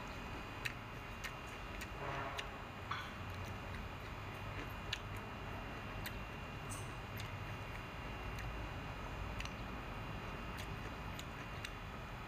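Chopsticks clicking against a bowl of noodles as they are stirred and picked up, giving sharp, irregularly spaced ticks over a low steady room background.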